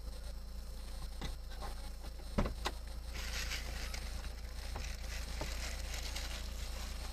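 Steady low hum of a car running, as picked up by a dash cam, with a few faint clicks and one sharper knock about two and a half seconds in; a hiss rises from about three seconds in.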